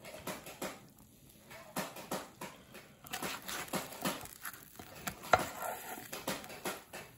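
A spatula scraping and clinking against a baking tray while a baked burrito is lifted out, with irregular scrapes and taps and one sharp clink about five seconds in.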